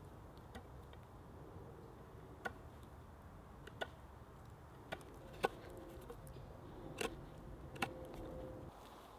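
Knife whittling a piece of wood, the blade cutting into the grain with about six sharp clicks at uneven intervals, the loudest about halfway through.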